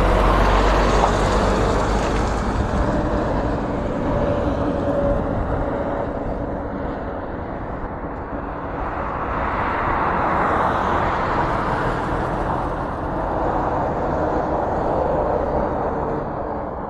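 Road traffic passing close by on a highway: a large truck goes past at the start with a strong low engine sound that fades within about two seconds, and another vehicle swells past about ten seconds in, over a steady noise of tyres on the road.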